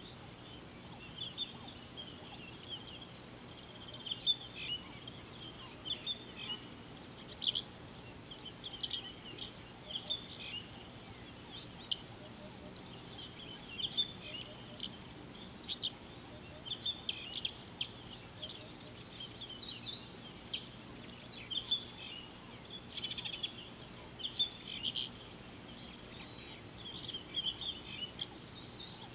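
Birds chirping and twittering on and off throughout, many short high notes over a faint steady background hiss.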